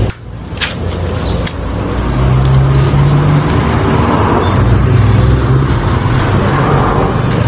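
Domestic cat growling: a low, continuous rumbling growl that swells and eases from about two seconds in, an angry warning at a rival cat. A few faint clicks come in the first second and a half.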